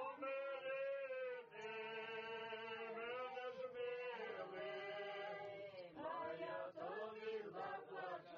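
A group of women singing a Ukrainian folk song unaccompanied, in long drawn-out notes sung together, with shorter phrases near the end.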